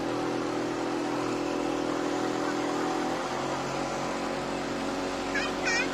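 Motorboat engine running steadily over a constant hiss, its note shifting about three seconds in. A voice cuts in briefly near the end.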